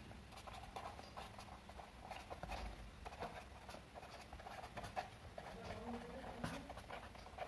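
Faint scratching and tapping of a pen writing on paper, in irregular short strokes.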